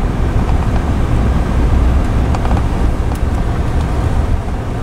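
A car or truck driving slowly, its steady low engine and road rumble heard from inside the cabin.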